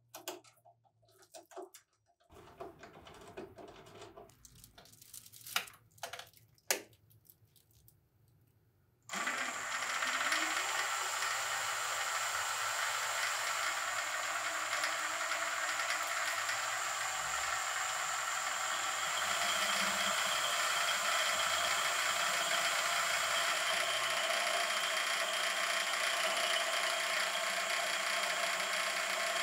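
Small benchtop metal lathe: a few light clicks and knocks as a part is clamped in the three-jaw chuck with the chuck key, then about nine seconds in the lathe starts and runs steadily with a high whine, turning metal.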